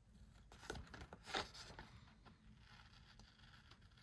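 Faint snips and paper rustle of scissors trimming a paper tag, a few short crisp sounds about a second in.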